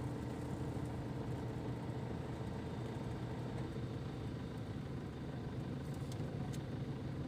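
A vehicle engine running steadily with an even hum, with wind noise over it.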